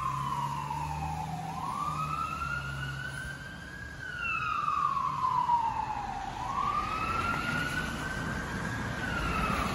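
Fire engine's siren sounding a slow wail, its pitch sweeping up and down about every five seconds. The truck's engine rumbles low underneath for the first few seconds.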